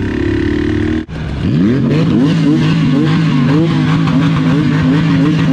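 Motorcycle engines running at low, fairly steady revs, the pitch wavering slightly. An abrupt cut about a second in switches from one engine note to another.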